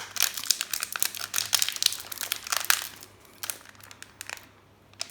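Crinkling of a trading-card booster pack's wrapper as it is handled and pulled at to get it open: dense crackling for about three seconds, then a few scattered crackles that fade out.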